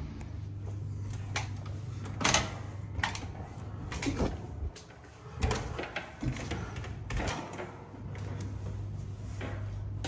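Irregular knocks and clunks, about eight of them, from a wooden folding attic ladder and its hatch being worked and climbed, over a steady low hum.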